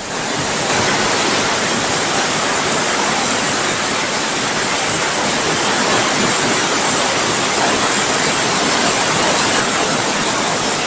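Heavy rain falling in a strong wind, a loud, steady hiss.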